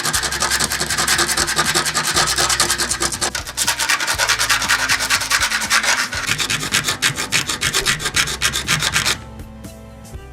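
Rapid, rough rubbing or scraping strokes, many a second, like abrasive work on a workpiece, stopping abruptly about nine seconds in.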